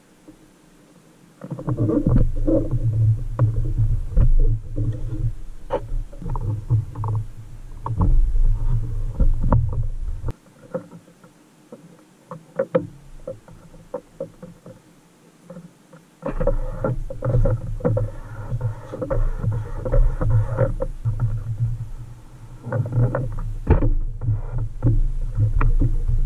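Fingers rubbing and pressing sticker decals onto a plastic toy Tonka Jeep Wagoneer body: a low rumbling handling noise with many small clicks and taps. It comes in two long stretches, starting about a second and a half in, with a quieter pause of only faint clicks in the middle.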